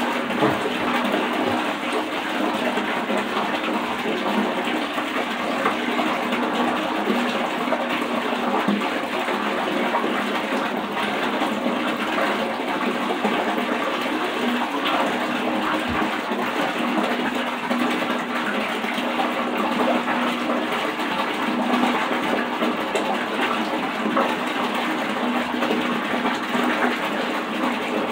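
Bathtub faucet running steadily, water pouring into a filling tub.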